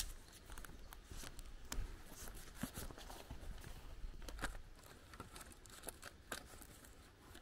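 Walker's footsteps and clothing rustling close to the microphone, with scattered light clicks over a faint low rumble; a single sharp click right at the start.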